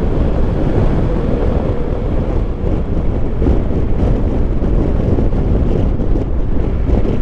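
Wind rushing over the microphone of a moving Triumph Tiger Explorer 1200, with the motorcycle's engine and road noise running low and steady underneath.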